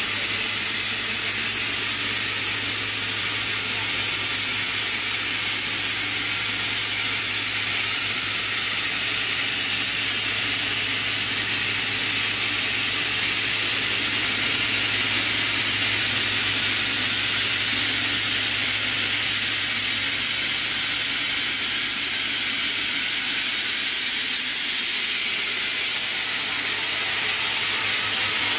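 Polypropylene multifilament spinning line running: a steady hiss with a low hum underneath. The hum fades somewhat near the end.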